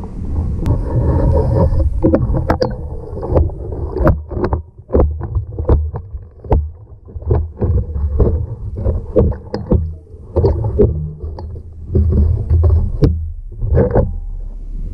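Irregular knocks and metallic clatter of a magnet-fishing pole and magnet working in a street drain, over a low rumble.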